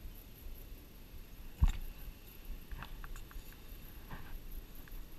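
Faint clicks and small knocks from handling a fishing rod, spinning reel and lure close to the microphone, with one sharper knock about a second and a half in, over low outdoor background noise.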